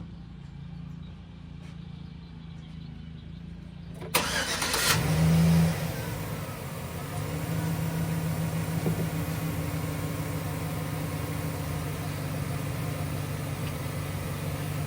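Chevrolet Silverado pickup's engine cranked by the starter about four seconds in. It catches at once, revs up briefly (the loudest moment), then settles into a steady idle.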